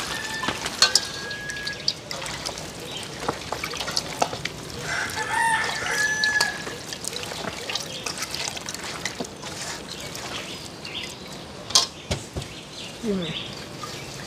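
A rooster crowing twice, about five seconds apart, over the wet handling and small clicks of hands working seasoned raw meat in steel bowls. A single sharp clank comes near the end.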